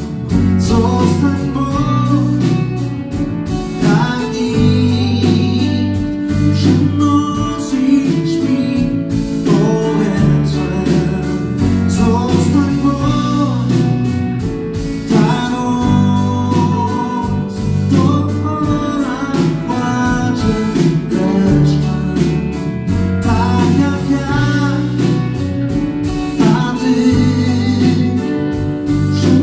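Live band playing a slow song on stage: a pulsing bass line and drums under keyboard and guitar, with a melodic lead line on top.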